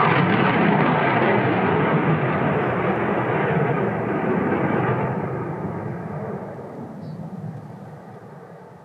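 Jet engine noise of a Saab JAS 39 Gripen fighter in flight: loud and steady at first, then fading gradually from about halfway through as the jet moves away, its higher pitches dying out first.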